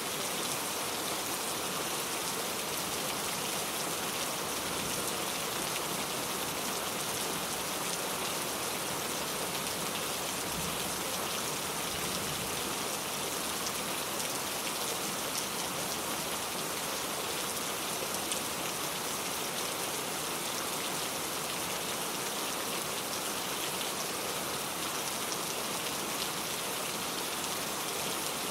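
Heavy rain falling steadily, a dense even hiss of drops on surfaces with no letting up.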